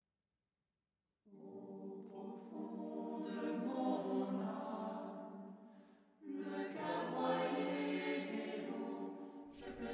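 Choir singing in two sustained phrases. The first begins about a second in and fades out near the middle, and the second follows at once.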